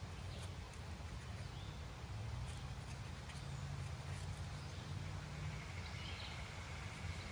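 Faint snicks and scrapes of an L.T. Wright Pronghorn knife paring a dried black cherry stick, over a steady low rumble, with a few faint bird chirps.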